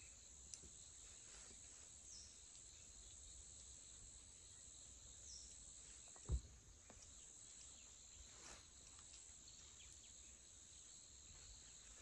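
Faint, steady high-pitched chirring of crickets in forest, with a single sharp thump about six seconds in.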